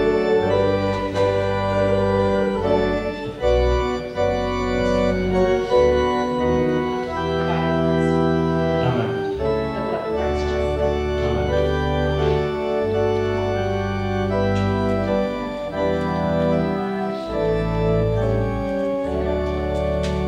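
Church organ playing slow, sustained chords that change every second or two over long low bass notes.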